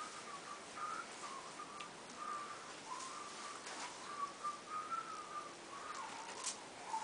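A person whistling a slow, wavering tune softly, with a single sharp click near the end.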